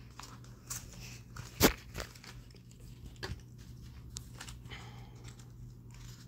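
Hands handling a smartwatch's cardboard box and sleeve: scattered light taps, scrapes and rustles, with one sharp knock about a second and a half in.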